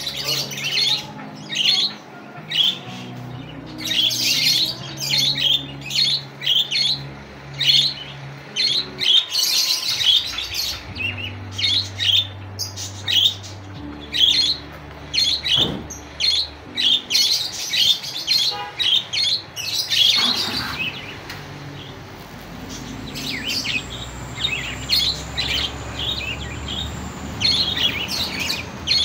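Budgerigars chirping and chattering in a quick stream of short, high calls, with a brief lull about two-thirds of the way through.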